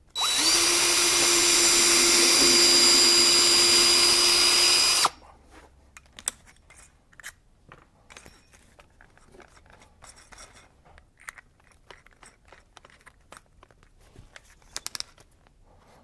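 DeWalt 20V MAX cordless drill spinning up and running steadily as it bores a pilot hole into the side of a wooden birdhouse. It stops abruptly after about five seconds, and light clicks and handling noises follow.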